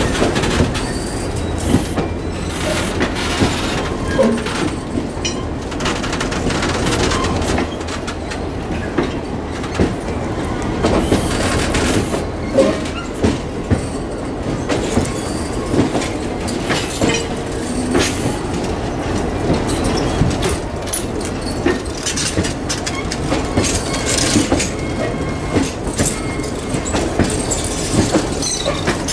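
Passenger coaches of the Cuyahoga Valley Scenic Railroad train rolling past close by, their wheels clattering over the rail joints in a steady run of clicks and knocks.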